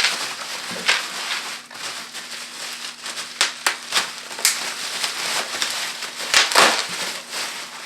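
Plastic bubble wrap being handled and pulled at, crinkling continuously with scattered sharp crackles and snaps, the loudest about six and a half seconds in.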